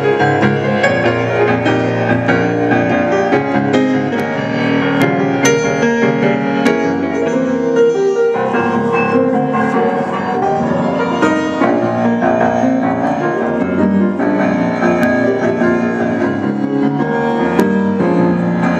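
Jazz piano played live: a steady stream of chords and quick runs with no break.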